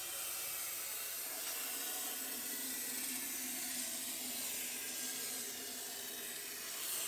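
Aerosol cavity wax sprayed through a long extension wand into a car's lower frame rail, rust-proofing it after welding: one continuous, steady hiss lasting about seven seconds.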